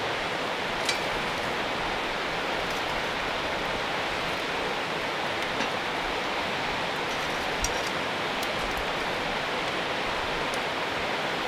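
Steady rain falling, an even hiss, with a few sharp drip clicks scattered through it.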